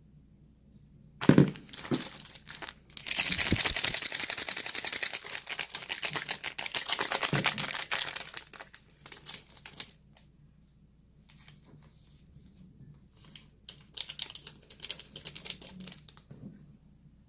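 Close-miked crinkling and crackling, like plastic packaging being handled and crumpled, in a long dense run and then shorter bursts. It is preceded by a single heavy thump about a second in.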